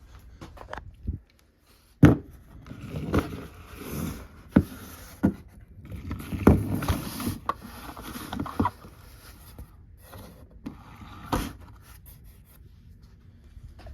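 Handling noise: a string of knocks and thumps with scraping between them, the sharpest knock about two seconds in.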